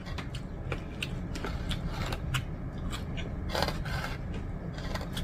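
Fingers tearing apart rotisserie chicken in a foam takeout container: a run of small irregular clicks, crackles and scrapes as the meat is pulled and the container is handled.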